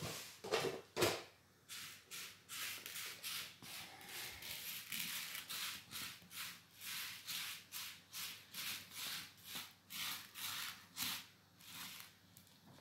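Dry buckwheat groats rustling and rattling on a ceramic plate as fingers sweep through them to sort the grains, in short, even strokes about two a second. There are a few louder knocks and rustles at the start.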